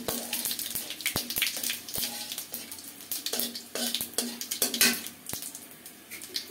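Cumin seeds sizzling in hot oil in a pan, tempering for a curry: a steady sizzle broken by many sharp crackles and pops.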